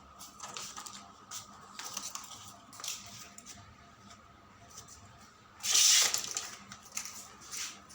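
Packaging being handled while a mini fridge is unboxed: scattered rustles and light knocks, then a loud rasping tear of packaging about six seconds in.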